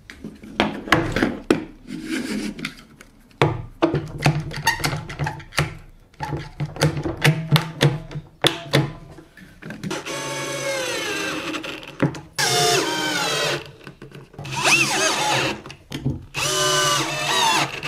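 Cordless drill-driver running in several short bursts in the second half, driving screws to fix a plywood strip to a cabinet side, its pitch dropping under load in the first run. Before that, scattered clicks and knocks of the wood and a one-handed clamp being handled and set.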